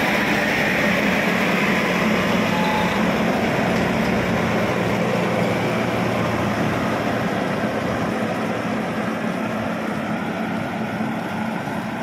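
Maxxi Bimo crawler combine harvester on the move, its diesel engine running steadily at a constant pitch along with the noise of the machine and its tracks. It grows gradually fainter as the machine pulls away.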